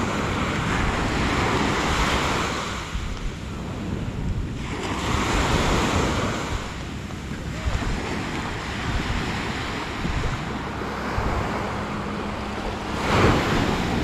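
Small sea waves breaking and washing up the sand, swelling and fading every few seconds, the strongest wash near the end, with a steady low rumble of wind on the microphone.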